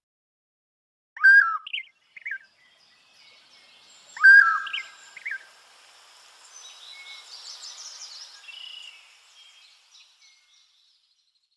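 A birdsong tone from the Redmi Go 2's Android sound set: two loud swooping bird calls about three seconds apart, each followed by a few short chirps, then a fainter chorus of birds that fades out.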